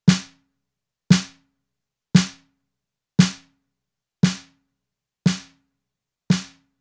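A snare drum hit repeating about once a second, seven even strokes, each dying away quickly. It runs through a 3:1 compressor whose threshold is being lowered, so the later hits come out slightly quieter as gain reduction sets in.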